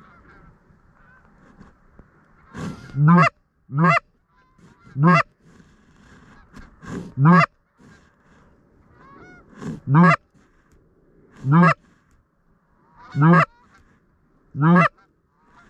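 Canada goose honks: about eight loud, short honks that rise in pitch, coming every one and a half to two seconds, several led by a softer lower note.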